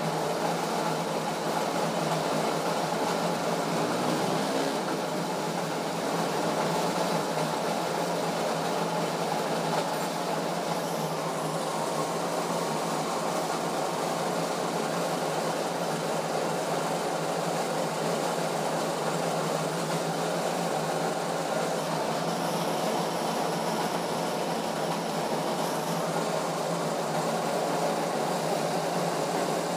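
Diesel injection pump test bench running steadily, driving an Isuzu 4JB1 injection pump during calibration: a constant mechanical running noise with a steady hum.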